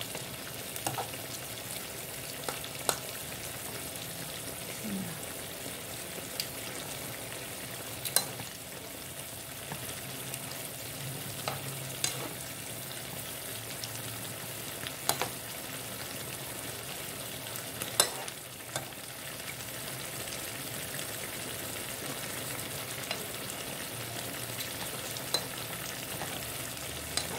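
A pan of sour dried-fish broth boiling with a steady bubbling hiss, while a metal spoon stirs it and clinks against the pan every few seconds.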